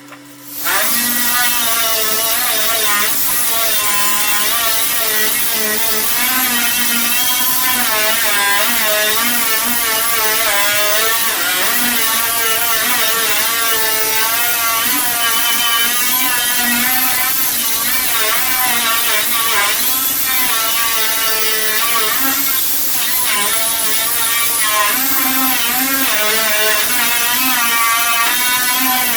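Handheld power tool, such as a grinder or drill, running continuously while it strips paint. Its motor pitch wavers up and down as it is pressed into the work and eased off.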